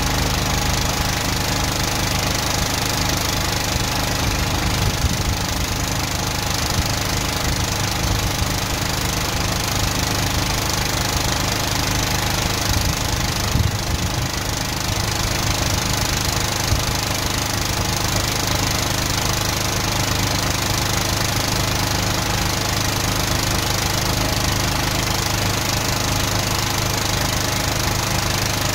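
Van-mounted drain jetter's engine and pump running steadily, a constant hum with an even hiss over it, while a high-pressure hose jets out a blocked drain gully.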